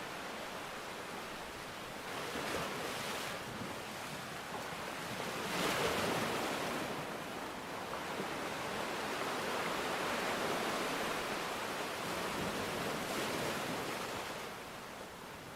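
Rushing water noise, a steady hiss that swells and eases in slow surges every few seconds, with the strongest surge about six seconds in.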